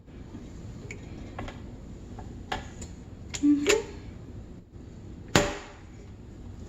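Kitchen clatter: a handful of sharp knocks and clinks of utensils against a pan and counter, spaced irregularly, with the loudest knock about five seconds in.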